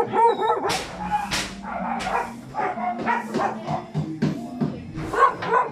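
A caged puppy howling in short wavering cries in the first half-second, then dogs barking and yipping in a run of short, sharp calls.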